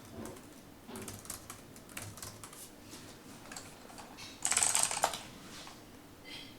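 Typing on a computer keyboard: scattered key clicks, with a louder half-second burst of noise about four and a half seconds in.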